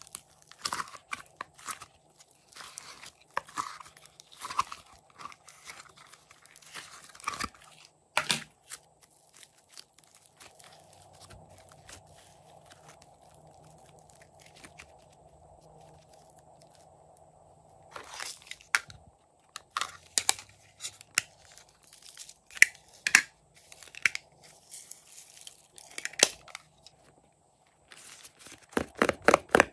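Hands squeezing, folding and stretching fluffy slime, giving irregular crackly pops and tearing sounds, with a quieter stretch in the middle. Near the end, a quick run of sharp clicks as a silicone pop-it toy is pressed.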